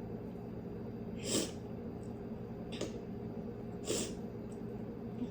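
A child sniffing three times through the nose, short sharp sniffs a second or so apart, the first the longest, as they hold back tears.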